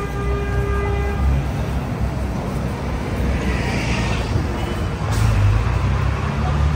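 City street traffic: a steady low engine rumble from passing vehicles. A held tone sounds in the first second, and a brief hiss comes about halfway through.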